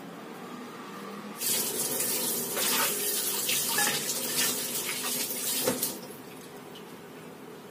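Kitchen tap running water onto a plate being rinsed in a stainless steel sink, with splashing. The water starts suddenly about one and a half seconds in and stops about four and a half seconds later, just after a sharp knock.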